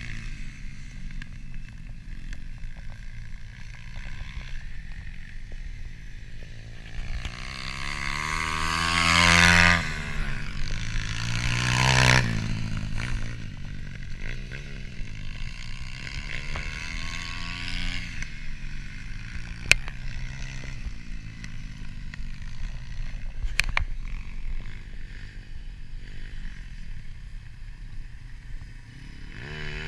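Several 140cc pit bikes, small single-cylinder four-stroke engines, revving up and down as they ride a dirt track. Two bikes grow loud and pass close about nine and twelve seconds in, then fall away. There are a couple of sharp clicks near the middle.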